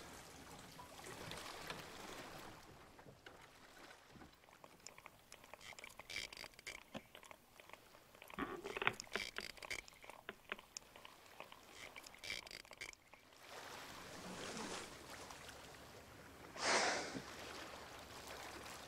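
Faint water lapping, with scattered small clicks and knocks through the middle and a short rush of noise near the end.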